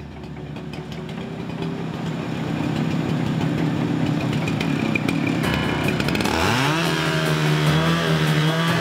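Two-stroke gas chainsaw running at low speed, then throttled up about six and a half seconds in, its pitch rising sharply and holding steady as it cuts into a log.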